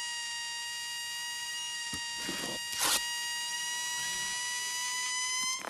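A steady high whistling tone, held at one pitch for about five and a half seconds and stopping near the end, with a few brief squeaky rubbing sounds about two to three seconds in.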